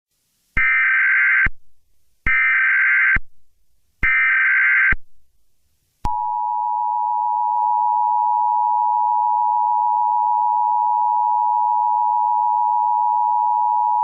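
Emergency Alert System SAME header: three short bursts of warbling data tones, each a little under a second long. About six seconds in, the EAS two-tone attention signal starts, a steady dual tone near 1 kHz held for about eight seconds.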